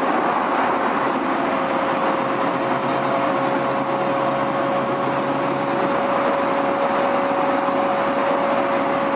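Steady hum of a stationary electric commuter train's equipment at a station, with a constant whine held at one pitch throughout and a fainter low drone joining for a few seconds in the middle.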